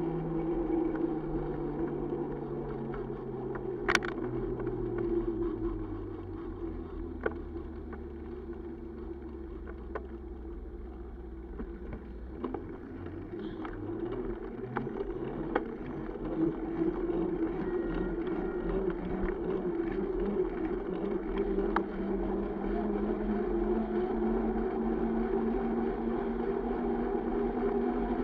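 Road traffic heard from a moving bicycle: car engines running in slow traffic alongside, with a low engine note that sinks in pitch over the first dozen seconds. Scattered sharp clicks, the strongest about four seconds in, and a steady hum that rises again in the second half as the bike gets going on the open street.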